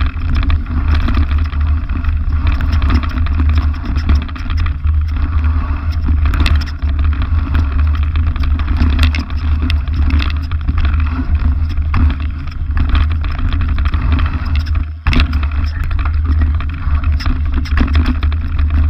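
Mountain bike riding down a rough dirt singletrack, picked up close on the bike: a steady heavy rumble of wind and ground noise, broken by frequent knocks and rattles as the bike hits bumps and stones.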